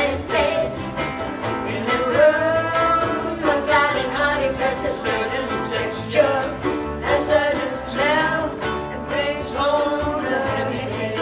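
Ukulele band playing live, strummed ukuleles with a sung melody over them.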